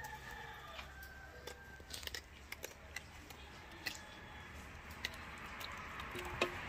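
Faint wet handling of raw fish being cleaned in a metal tray of water, knife in hand: scattered small clicks and squishes, with light water swishing building near the end.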